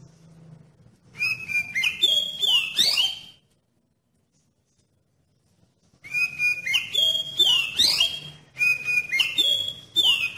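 Oriental magpie-robin (kacer) singing loud whistled phrases of quick rising and falling notes, in two bouts with a pause of about two seconds between them.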